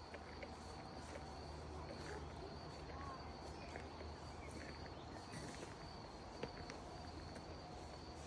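Quiet forest ambience: scattered short bird chirps over a steady high-pitched whine and a low background rumble.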